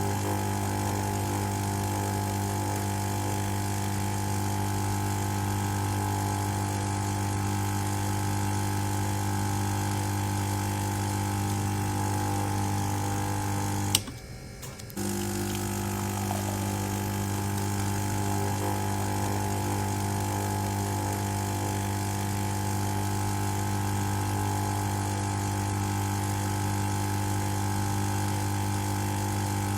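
Espresso machine pump running with a steady buzzing hum. About halfway through it is cut by a sharp click and drops out for about a second, then resumes.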